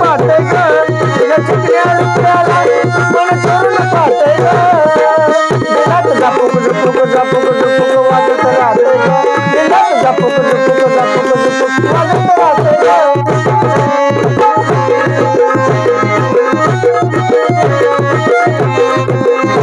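Instrumental break of a song: a dholki drum keeps a steady, driving hand-played rhythm under a melody that includes some gliding notes, with no singing.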